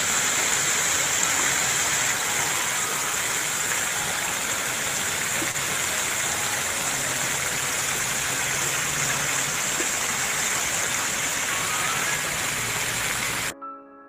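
Fountain water jetting up and splashing down onto its stepped tiers and into the basin: a steady rushing hiss that cuts off suddenly near the end.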